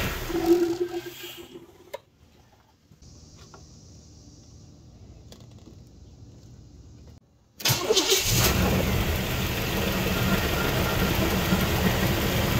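The Suburban's 5.7-litre V8 runs, then dies away over the first couple of seconds. After several quiet seconds it is cranked and starts a little past halfway, settling into a steady idle while the power steering is being bled.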